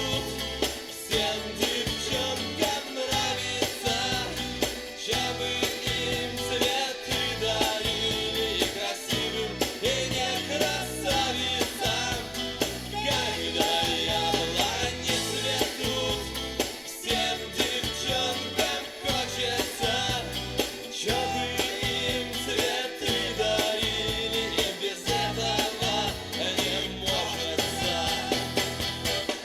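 Russian pop song with a steady beat, played back through an Akkord 201 stereo amplifier and its loudspeakers.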